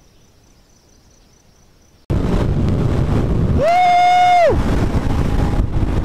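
Faint background hush for about two seconds. Then the loud rushing ride noise of a Husqvarna 701 Supermoto at speed, mostly wind on the microphone, cuts in. In the middle, a steady high-pitched tone sounds for about a second.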